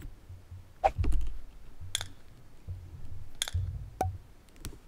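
Clear protective plastic film being peeled off the gold-plated clasp of a Hermès Kelly bag's strap: about six sharp crinkly clicks spread out, with soft handling rumble in between.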